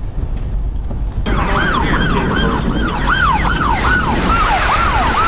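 Electronic siren yelping, its pitch rising and falling about two to three times a second, starting about a second in over a steady low rumble.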